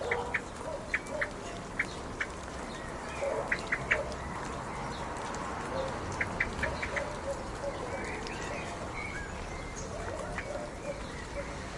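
Steady rain with birds calling over it: short high chirps in quick clusters of two to five, repeated several times, and some lower calls.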